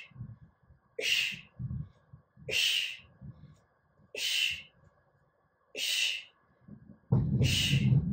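A woman breathing hard through a plank with shoulder taps and arm raises: short, sharp, hissing breaths about every second and a half. A louder low sound comes in near the end.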